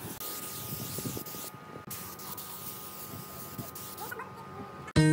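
Spray gun hissing as it sprays clear finish onto a wooden vase, the spray stopping briefly twice. Acoustic guitar music starts at the very end.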